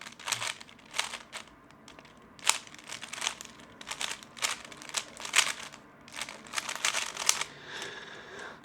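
Plastic 3x3 speed cube being turned quickly by hand: irregular runs of short plastic clicks and clacks as the layers are twisted during a solve.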